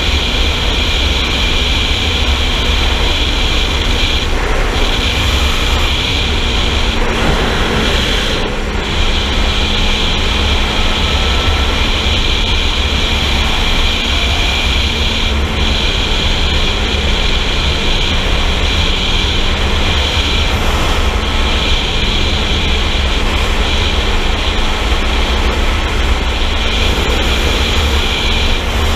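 Sport motorcycle running at high, steady speed: a steady engine tone under heavy wind rush on the camera microphone.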